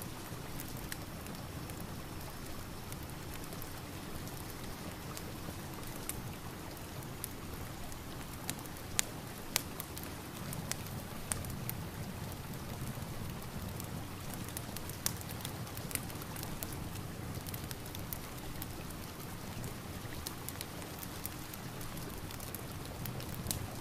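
Steady rain mixed with a crackling fireplace: an even hiss with scattered sharp pops and clicks.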